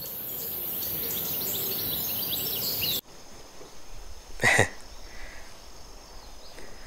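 A swelling hiss, added as a sound effect, builds for about three seconds and cuts off suddenly. Then comes quieter outdoor ambience with insects chirring steadily and one short sound about a second and a half later, as a goby is lifted out on the line.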